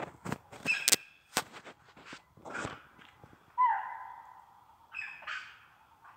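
An animal call: a single clear tone that starts sharply about three and a half seconds in and fades away over a second or two. Short knocks and rustles come before it.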